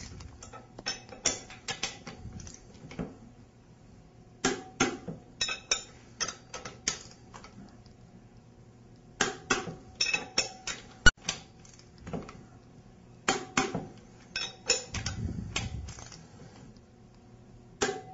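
Ratcheting torque wrench working the tie-rod nuts of a waterjet intensifier up to their final 120 foot-pounds: four spells of quick ratchet clicks, one nut after another, with a single sharp metallic click about eleven seconds in.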